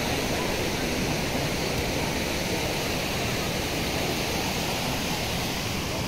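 Waterfall cascading over rock: a steady rush of falling water.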